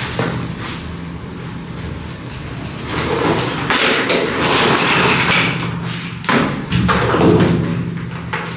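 A few dull thuds with swishing noise between them, with sharp knocks about six and a half seconds in.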